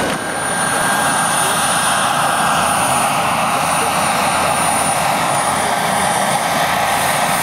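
Giant radio-controlled Kamov Ka-32A11BC model helicopter with coaxial twin rotors flying low and hovering, a steady dense rotor and engine noise with a thin high whine held throughout.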